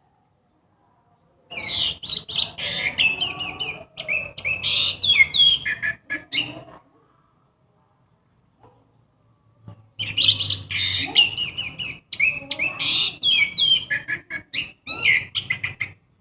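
Orange-headed thrush singing a varied song of rapid, shifting whistled phrases in two long bouts, the first starting about a second and a half in and the second about ten seconds in, with a pause of a few seconds between.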